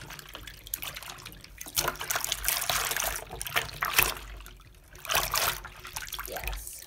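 Silicone pop-it fidget toys being swished around by hand in a sink of soapy water: sloshing and splashing that comes in uneven surges, strongest about two and five seconds in.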